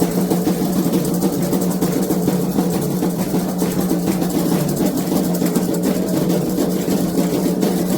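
Candomblé atabaque hand drums playing a continuous, dense rhythm.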